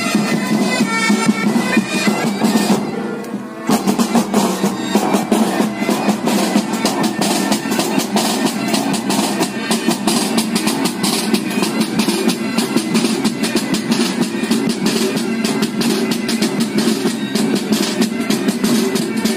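Military pipe band playing: bagpipes with their steady drones and melody, together with drums. The sound dips briefly about three and a half seconds in, after which rapid drum strokes stand out over the droning pipes.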